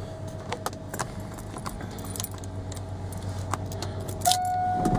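Keys jangling on a key ring at a truck's ignition switch. A steady electronic warning tone sounds throughout and becomes louder about four seconds in. The engine has not yet been cranked.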